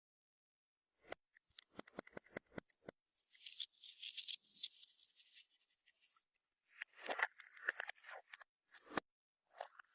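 Hands working clear slime: a quick run of sharp clicks and pops, then a stretch of fine crackling, then a few squishes near the end.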